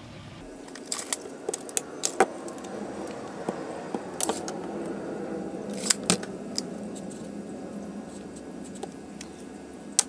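Scattered clicks and light clatter of plastic PVC union fittings and a tape measure being handled on a workbench, the sharpest knocks bunched about a second in, around four seconds and around six seconds.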